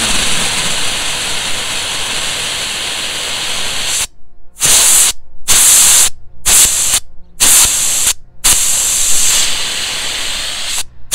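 Compressed air at about 35 psi blowing the last water out through an RV's outdoor spray-port nozzle, making a loud spraying hiss as the line is cleared for winter. It runs steadily for about four seconds, then comes in a string of short spurts with sudden stops, then runs steadily again before one more break near the end.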